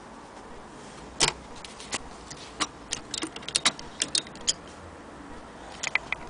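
Irregular clicks and light knocks from handling an antique Frister & Rossmann hand-crank sewing machine and its wooden case, the loudest knock about a second in and a cluster of smaller clicks after it.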